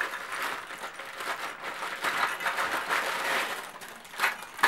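Gift-wrapping paper rustling and crinkling as a small present is unwrapped by hand, with one sharper, louder crackle a little past four seconds in.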